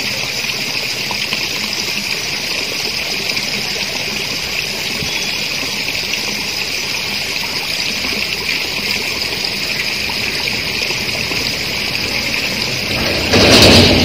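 A steady high-pitched hiss of outdoor background noise, with one brief loud rushing burst near the end.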